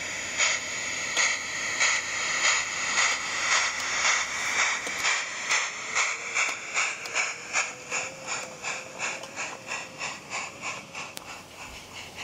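A 16mm-scale model Manning Wardle locomotive pulling away with its goods train, its chuffs coming faster as it gathers speed and fading as it draws away.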